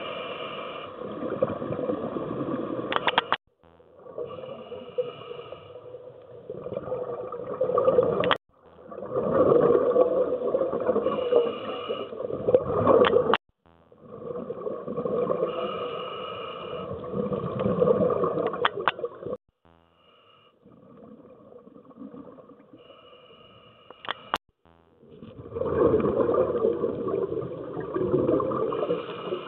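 Scuba diver breathing through a regulator underwater, in a cycle about every five seconds: a hiss and rush of air and bubbles, each ending sharply with a click and a brief lull.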